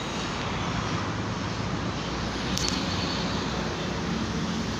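Steady road traffic noise from a busy highway, an even rush of passing vehicles with no single event standing out.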